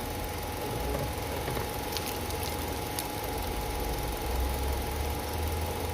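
Steady engine idling hum with a thin, constant tone over it. A few light clicks come about two and three seconds in.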